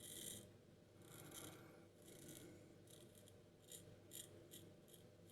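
Faint scraping of a heavy C.V. Heljestrand safety razor cutting stubble through shaving lather, in about eight short strokes that get shorter and quicker toward the end.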